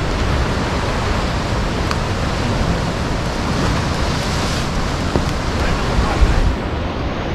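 Rough sea surf washing against a rocky shore, with wind rumbling on the microphone; a wave breaks with a louder hiss about four seconds in, and a low thump follows near six seconds.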